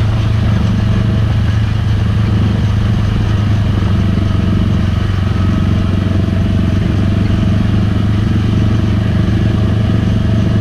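Utility vehicle engine running at a steady speed while driving, a low, even drone.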